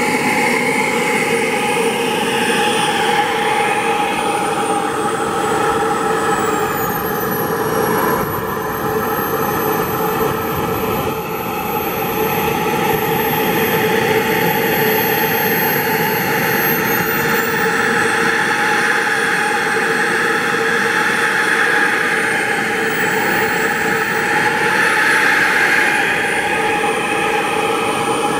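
K-180G model jet turbine running in an RC MiG-29 as it taxis, a loud steady rush with a high whine. The whine drops in pitch about eight seconds in, climbs back about halfway through, then wavers and rises again near the end as the throttle is worked.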